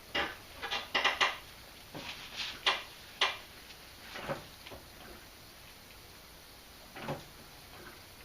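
Light clicks and knocks of hand tools and parts being handled during brake bleeding: a quick run of them in the first few seconds, then quieter, with one more knock near the end.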